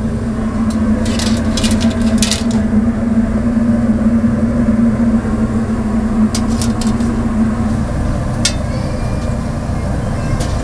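A steady machine hum over a low rumble that cuts off about eight seconds in, with a few sharp clicks and clinks in short clusters.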